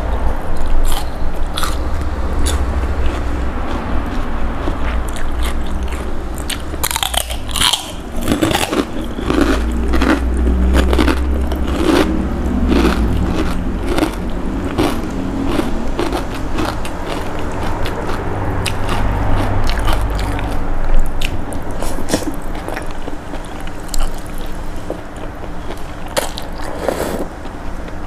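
Close-miked eating: crunching and chewing of raw bean sprouts and thin rice noodles from a pork noodle soup, with many small wet clicks, and noodles being sucked up near the end.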